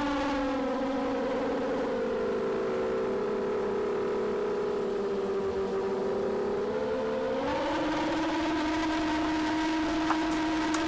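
FPV racing quadcopter's electric motors whining with a steady, pitched hum. The pitch drops about two seconds in and climbs back up near seven and a half seconds as the throttle eases off and comes back.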